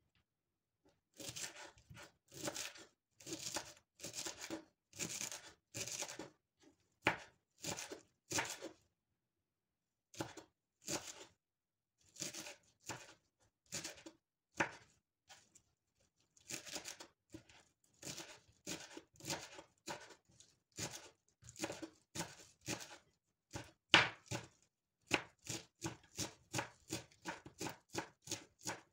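Food preparation: a run of short, irregular strokes of a kitchen utensil working on food, about one or two a second with a few brief pauses and one sharper knock near the end.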